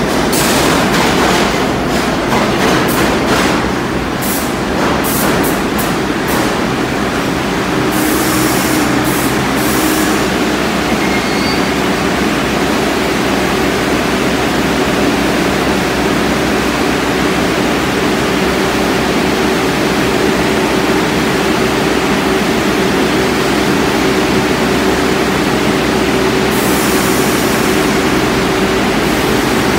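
Bombardier R62A subway train on the far track, clattering over the rails for the first several seconds as it pulls in. It then stands at the platform with a steady hum from its equipment. Brief hisses of air come about eight seconds in and again near the end.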